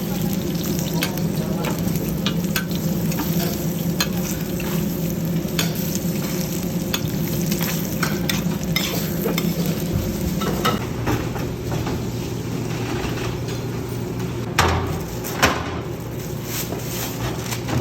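Scallion pancakes sizzling as they fry in oil, with metal utensils clicking and scraping against the pan throughout. A steady low hum runs underneath, and there are two louder knocks near the end.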